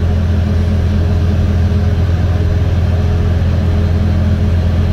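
Steady tyre noise on pavement under a low engine drone, heard from inside the closed cab of a Can-Am Defender Limited side-by-side cruising along the road; the tyres on the road are heard more than the machine.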